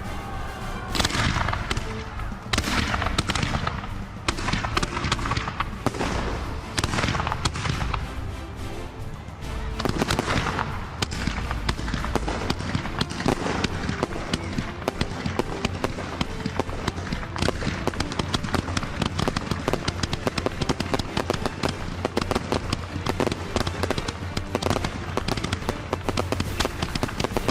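Fireworks shells bursting over music: separate loud reports at first, then from about ten seconds in a dense, rapid barrage of bangs and crackle with no gaps.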